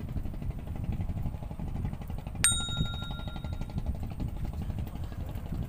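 A single metallic ding about halfway through, ringing with a few clear tones that fade within a second, over a steady low rumble.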